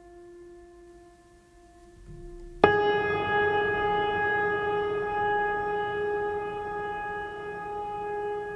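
Sustained wind-instrument-like tone with rich overtones: a quieter low held note, then about two and a half seconds in a sudden, much louder, slightly higher note that is held steadily.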